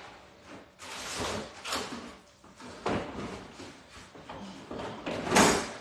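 Several short, noisy kitchen handling sounds, the loudest just before the end.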